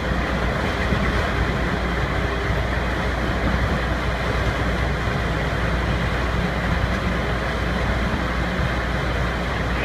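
A rotary pile-driving rig's machinery running steadily and loud, a constant drone with a low hum underneath.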